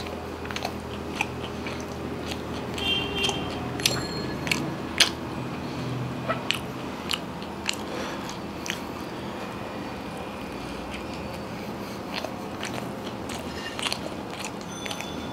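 A person chewing a mouthful of KFC Zinger burger, a crispy breaded fried-chicken fillet in a bun, with scattered sharp crunches, most of them in the first half.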